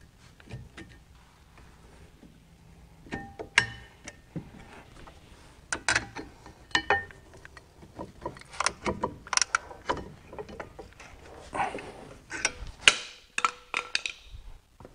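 Steel pry bars clinking, knocking and scraping against a Porsche Macan's front brake caliper and pads as the caliper pistons are levered back into their bores: an irregular run of sharp metallic clicks, some ringing briefly.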